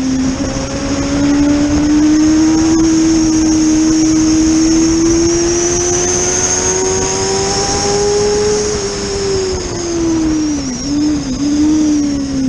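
Racing motorcycle engine running hard on board, over a rush of wind noise. Its note climbs slowly and steadily while the bike is leaned over through a long corner, then dips twice quickly about ten seconds in and falls away near the end.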